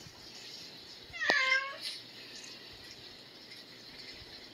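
A domestic cat meows once: a single short call about a second in, lasting about half a second.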